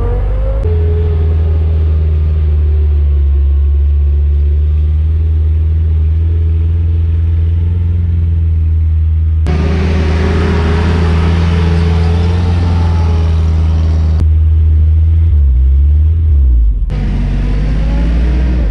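Willys CJ-3B's F-head four-cylinder engine running steadily under load as the Jeep climbs a sandy hill, a deep, even drone. Its tone shifts abruptly a few times, with a brief change in the engine note a little before the end.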